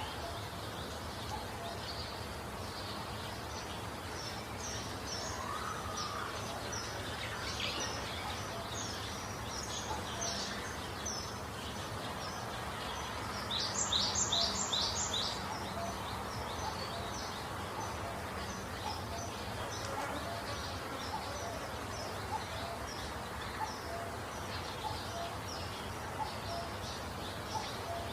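Small birds chirping: a steady run of short high notes, with a quick series of four louder notes about halfway through, over a steady background hiss.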